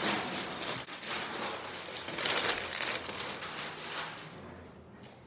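Packaging rustling and crinkling as a shipping package is handled and opened, in a run of noisy scrapes that is loudest about halfway through and tails off near the end.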